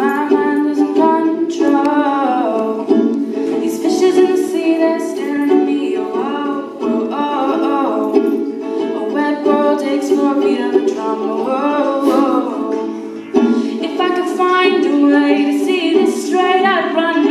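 A ukulele strummed steadily while a woman sings the melody live, in a small room.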